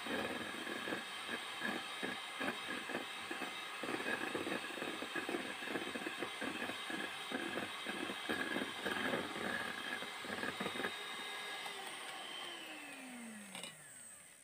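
Electric hand mixer running at high speed, its beaters clattering through a thick butter and egg-white cream in a stainless steel bowl. Near the end the mixer is switched off and its motor whine falls in pitch as it winds down.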